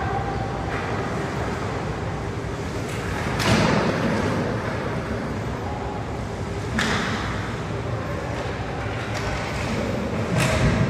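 Ice hockey game in an echoing rink: a steady noisy hum with three sudden sharp sounds from play on the ice, about three seconds apart.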